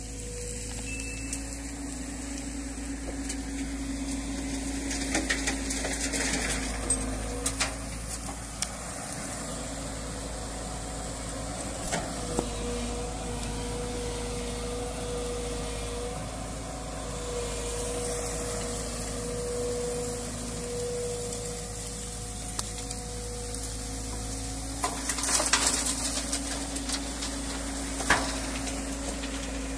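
JCB tracked excavator engine running steadily while loading river stones into a tipper truck. Short clatters of stone come now and then, with a louder burst of clattering near the end.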